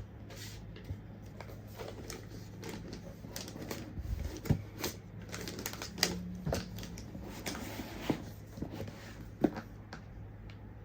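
Irregular clicks, taps and light rustles of the iPad, its accessories and their packaging being handled during an unboxing, a few sharper knocks standing out, over a steady low hum.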